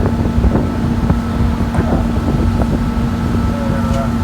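Tour boat's engine running with a steady droning hum, with wind rumbling on the microphone.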